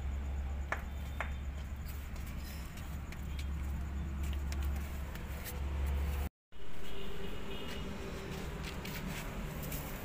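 Workshop background: a steady low hum with a couple of light clicks near the start; the sound cuts out completely for a moment about six seconds in, and a different, noisier background follows.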